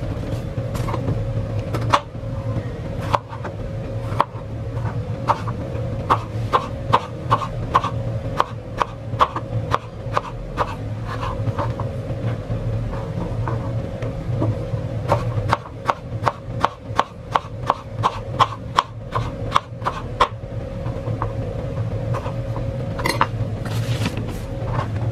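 Kitchen knife chopping bottle gourd on a plastic cutting board: quick knocks of the blade on the board, about two or three a second, in runs with pauses between. A steady low hum runs underneath.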